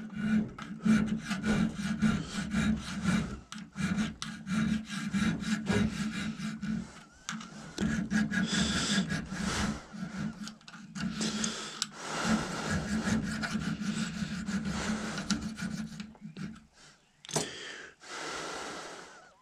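Small hand file worked back and forth in a dovetail slot on the underside of a muzzleloader barrel: a long run of short rasping strokes while the slot is shaped to fit a lug. The strokes stop near the end.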